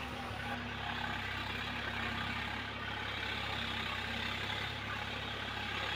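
Swaraj 855 FE tractor's three-cylinder diesel engine running steadily under load as it drives a rotavator through a flooded paddy field.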